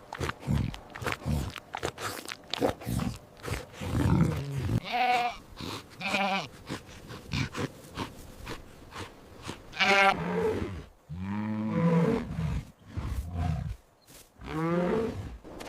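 Recorded animal calls: about five separate pitched calls with a quavering, wavering pitch, spaced among shorter rough grunting noises.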